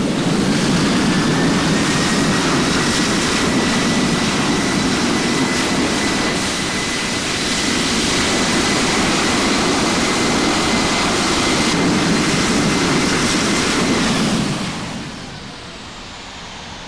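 Airbus A350's Rolls-Royce Trent XWB jet engines, loud and close, with a steady high whine over a deep rush. The sound sets in suddenly and drops away about 14 to 15 seconds in.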